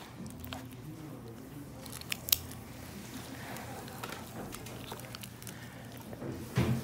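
Dissecting scissors snipping through a fish's flesh, with a few sharp clicks of the blades, the sharpest about two seconds in. Wet, soft handling of the fish carcass runs underneath, with a louder low thump near the end.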